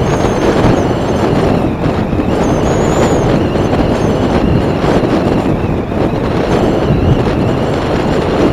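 Motorcycle riding along a highway at speed: steady wind buffeting the microphone mixed with engine and tyre noise, with a brief faint high squeal about three seconds in.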